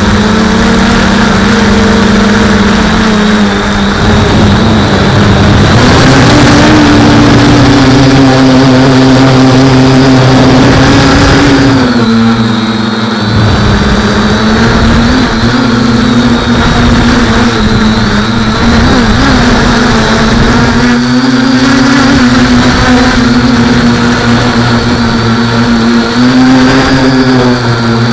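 Quadcopter's electric motors and 8x5 carbon propellers buzzing loudly in flight, the pitch rising and falling as the throttle changes, going up about six seconds in and dropping back near twelve seconds.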